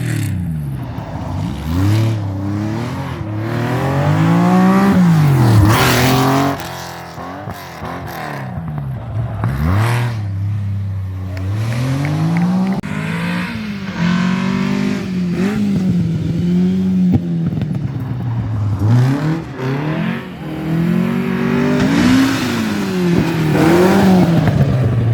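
Rally car engine revving hard through a stage, its pitch climbing and dropping again and again as the driver shifts gear and lifts off through the corners.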